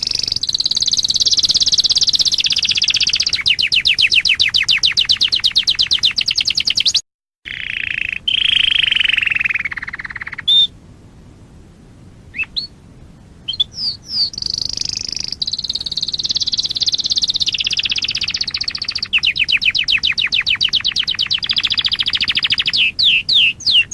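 Domestic canary singing long, fast trills and rolls, high-pitched. The song breaks off briefly about a third of the way in, turns to a lower slurred phrase, goes quieter for a few seconds, then resumes with rapid trills.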